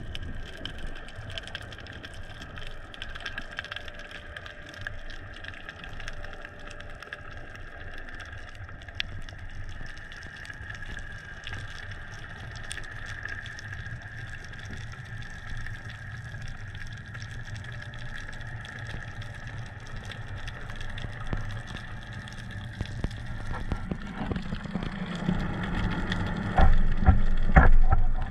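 Underwater sound picked up by an action camera in its housing: a steady muffled hiss with a faint hum, and a few bumps and knocks near the end.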